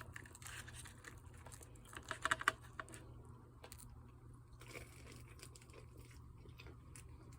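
Crunching bites into a crispy breaded chicken wing, with a burst of loud crunches about two seconds in and then quieter chewing clicks.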